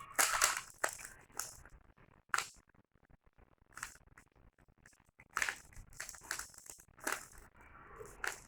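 Plastic Rubik's cube being turned by hand during a timed solve: irregular rattling clicks of the layers turning, some in quick runs, with short pauses between.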